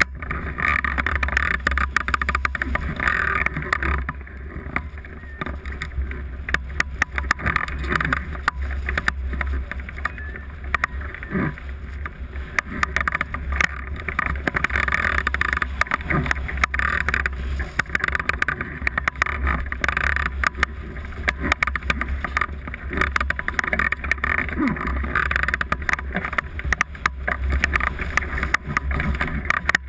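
Airflow rushing over a camera mounted on a hang glider in flight: steady wind noise with a low buffeting rumble.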